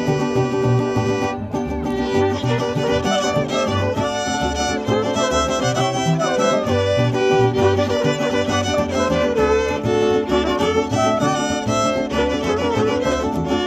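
Instrumental music: a violin carries the melody over a rhythmic bass line.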